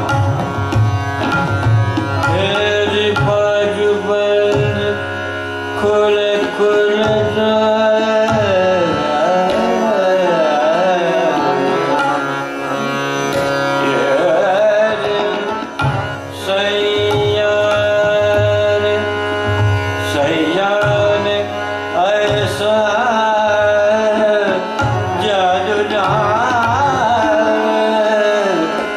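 Hindustani classical vocal performance: a male voice holds long notes and sings ornamented, gliding phrases over tabla strokes, with harmonium and a tanpura drone underneath.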